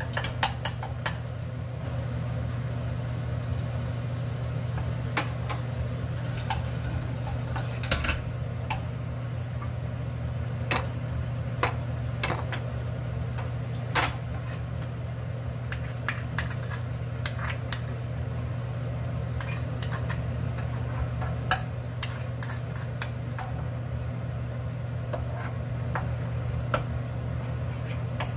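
Seasoning sauce sizzling and bubbling in a nonstick wok, with a wooden spatula stirring and tapping against the pan at times. Scattered small pops and clicks sit over a steady low hum.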